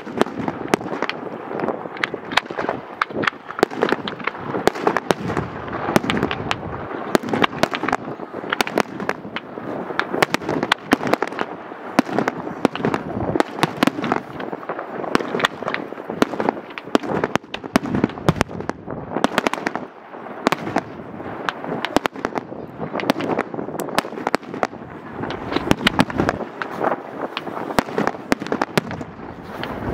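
Professional fireworks display going off in a dense, continuous barrage: bangs and crackling shell bursts several a second, overlapping without a pause.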